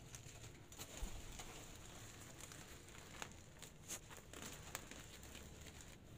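Faint rustling and crinkling of a woven plastic sack being handled and pulled, with a few scattered small crackles.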